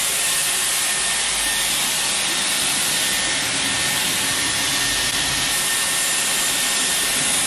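Dyson Airwrap hot-air hair styler running, a steady rush of blown air with a thin high motor whine, drying and shaping hair.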